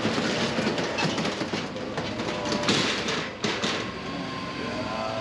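Metal roller shutter being lifted by hand, its corrugated slats rattling and clattering as it rolls up, loudest about three seconds in before it settles.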